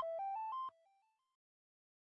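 Xiaomi Redmi Go 2 phone ringtone: a bright electronic melody of quick rising notes repeating in a loop, fading and stopping less than a second in, then silence.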